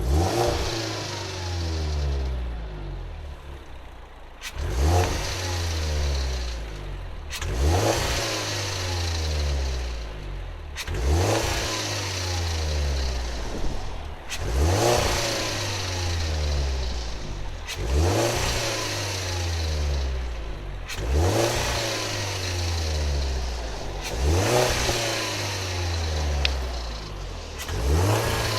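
Car engine revved again and again, about every three to four seconds: each blip of the throttle starts sharply and the revs then fall back over a few seconds. The revving is done to bring out an extraneous noise.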